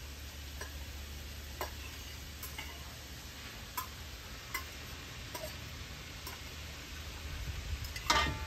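Scattered light clicks from a cooking pot and utensils over a low steady hum. About eight seconds in comes one louder metallic clank with a short ring, like a spoon striking the pot.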